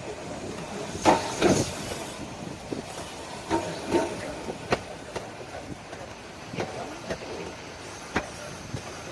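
Asunarou Railway narrow-gauge train running, a steady rumble with irregular clanks and knocks, the loudest cluster about a second in.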